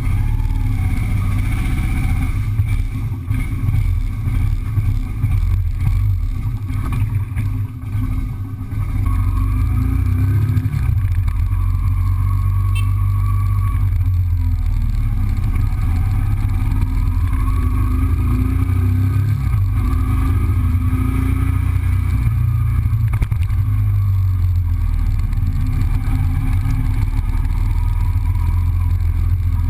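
Yamaha motorcycle engine running as the bike is ridden along the street, its pitch rising and falling as it speeds up and shifts. The first several seconds are a little more uneven before it settles into a steady run.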